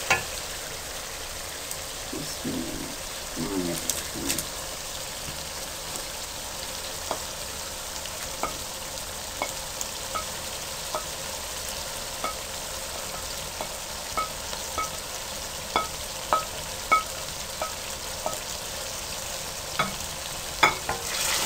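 Tomato masala with chicken and fried okra sizzling steadily in a metal pan on high heat, with a spoon clicking against the pan now and then as it is stirred.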